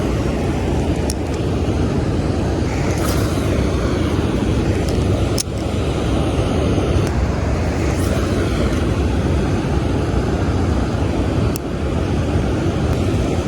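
Steady rushing of water pouring through a spillway, a constant deep roar, with a few faint clicks over it.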